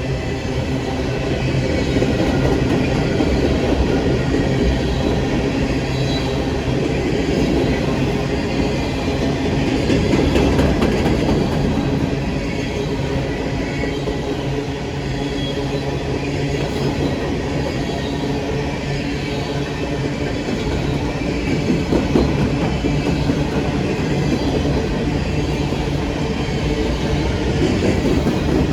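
Norfolk Southern loaded coal train rolling by, a steady rumble of railcars with a constant engine drone.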